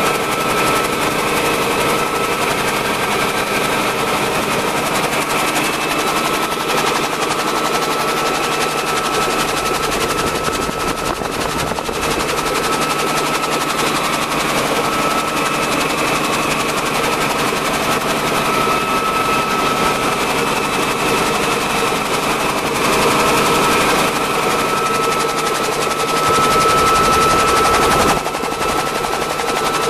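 Bell 47 helicopter's piston engine and rotor running steadily in cruise flight, heard from inside the cockpit.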